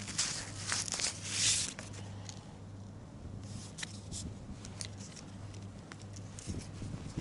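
Rustling and crinkling for about the first two seconds, then a few scattered clicks and taps, over a low steady hum.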